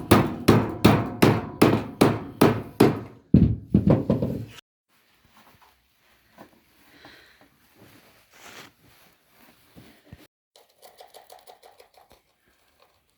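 Rapid, even hammer-like blows, about two and a half a second, for the first four and a half seconds, then cutting off abruptly; after that only faint scattered knocks.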